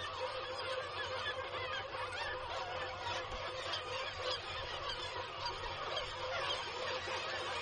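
Cliff seabird colony calling: many black-legged kittiwakes calling at once, overlapping into a steady din with no pauses.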